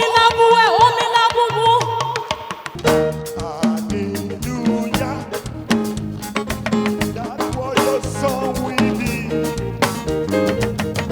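Upbeat band music: one long held note over the first few seconds, then the full band comes in about three seconds in with a steady beat and a bass line.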